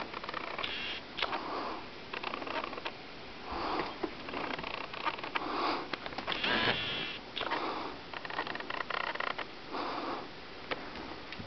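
Slow, steady nasal breathing close to the microphone, one soft breath every second or two, with one longer, louder rush of breath about six and a half seconds in and a few light clicks in between.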